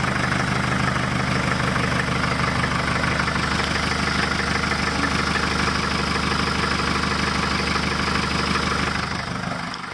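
A Mercedes-Benz van's engine idling steadily, heard from underneath close to its exhaust. The broken exhaust has been patched with steel wire and tape at the joints, and the patch is holding, with the exhaust coming out of the tailpipe.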